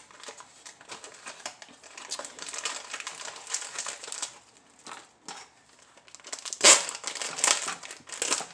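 Plastic packaging crinkling as hands work at a package of brown sugar, in irregular crackles, loudest about seven seconds in.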